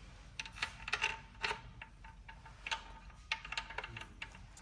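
A string of light, irregular metallic clicks and taps from hand tools working on a BMW N54 engine while its cam timing is being set.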